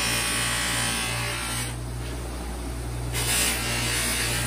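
Bench buffer's motor running with a steady hum while a stabilized-wood knife handle is pressed against its spinning cloth buffing wheel, giving a loud rushing hiss. The hiss stops about a second and a half in, as the handle comes off the wheel, and starts again about three seconds in.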